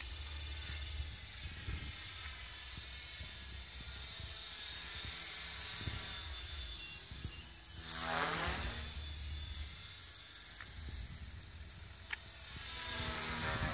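Align T-Rex 450 Pro DFC electric RC helicopter in flight: a steady high motor and rotor whine over a low rumble, its pitch sweeping up and down as it manoeuvres about two-thirds of the way in and again near the end.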